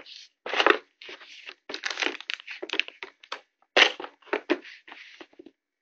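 Unboxing packaging being handled: a run of irregular crinkling, crackling rustles in short, uneven bursts.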